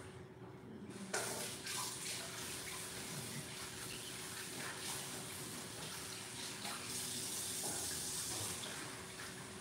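Kitchen sink faucet turned on about a second in, with water running steadily into the sink.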